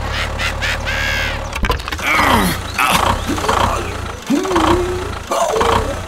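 Steady low tractor-engine rumble, with a brief drop-out a little past the middle. High, gliding squeaky voice sounds come over it several times.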